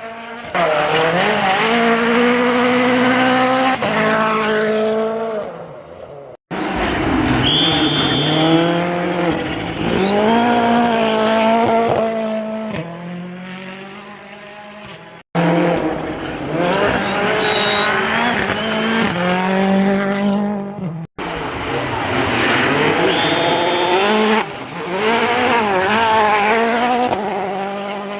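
Rally cars running flat out through a stage, one after another in separate cut-together passes: engines revving high, changing gear and rising and falling in pitch as each car approaches and goes by. The sound breaks off abruptly between passes about 6, 15 and 21 seconds in.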